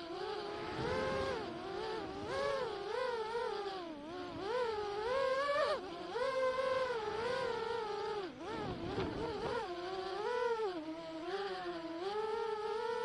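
Small quadcopter drone's propellers whining, the pitch sliding up and down continually as the motors speed up and slow down to manoeuvre.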